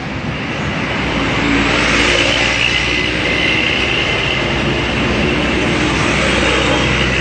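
A heavy vehicle passing close by: a loud, steady rush of engine and road noise that builds over the first two seconds and holds.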